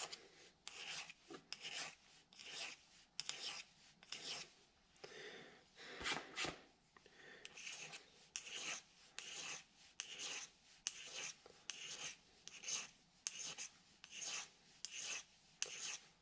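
Hand file rasping on a small metal keyway collar for a lathe change gear, in a steady run of short strokes about one and a half a second. The collar is being filed down where it sits too high, to fit the gear's keyway.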